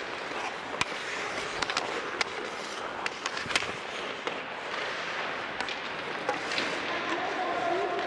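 Ice hockey practice: skate blades scraping and carving the ice, with frequent sharp clacks of sticks and pucks.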